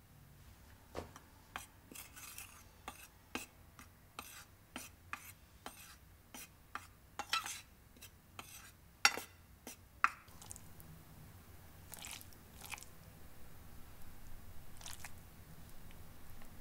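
Metal spoon stirring cornstarch and five-spice powder on a plate, scraping and clicking against the plate a few times a second, with two sharper clinks about nine and ten seconds in. After that only a few soft brushing sounds as pieces of marinated chicken are laid into the starch.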